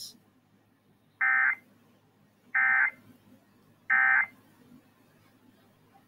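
Three short bursts of EAS SAME header data, the rapid digital warbling tones that open an Emergency Alert System test, evenly spaced about a second and a half apart.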